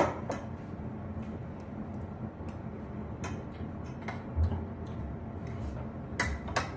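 Scattered clinks and taps of a spoon against a stainless steel pot and plates while serving and eating, a sharp clink at the start and two more near the end.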